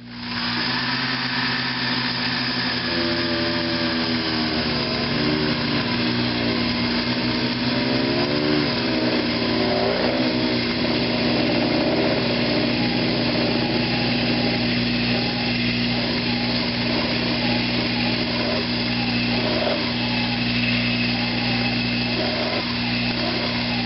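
Sherline mini lathe's motor coming up to speed and running steadily while a 3/8-inch drill bit, fed from the tailstock, drills into the spinning aluminum workpiece. Over the steady motor hum the cut adds a wavering, shifting tone.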